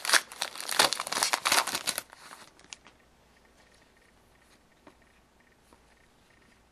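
Foil wrapper of a 2011-12 SP Authentic hockey card pack crinkling and tearing as it is handled and opened, for about two seconds, then only a few faint clicks.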